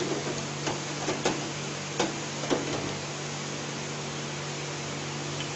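Churros deep-frying in the hot oil of an electric fryer: a steady sizzling hiss over a low hum, with a few sharp clicks in the first three seconds.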